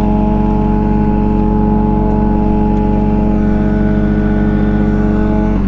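Sport motorcycle's engine idling steadily, then switched off at the very end, its note dropping away as it stops.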